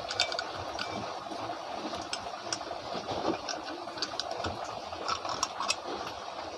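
Scattered small clicks and scrapes of hand work on a ceiling fan as its wire is pulled out, over a steady background hiss.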